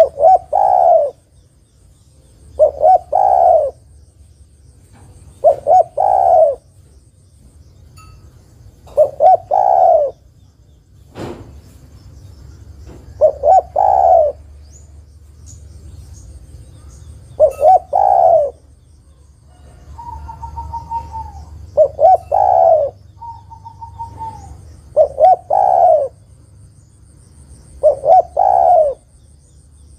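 Spotted dove cooing: nine repeated phrases, each two or three short notes running into a longer coo, about every three to four seconds. The uploader presents it as a female calling to draw a male into song. A single sharp click about eleven seconds in.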